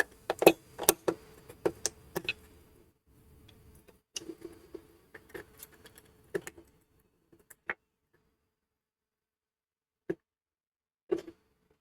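Sharp clicks and taps of tools and plastic parts being handled while the monitor's glued plastic enclosure is taken apart. The clicks come in quick clusters, pause, then turn sparse with single clicks near the end.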